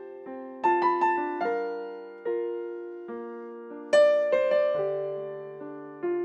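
Piano playing a slow instrumental interlude in a sung song: chords struck about once a second, each ringing and fading away, the loudest about four seconds in.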